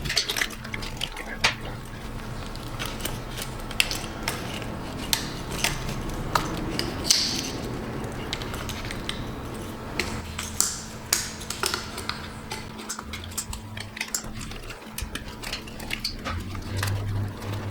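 Irregular metal clinks, taps and clatter of hand tools and engine parts being handled, over a faint steady low hum.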